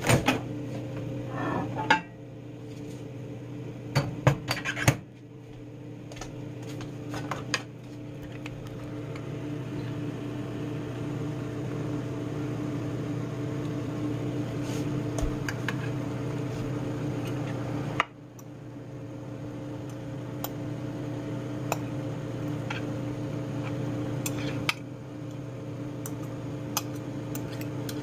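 Dishes and plastic containers knocking and clinking on a kitchen counter, a few sharp knocks in the first several seconds and lighter taps later, over a steady electrical hum.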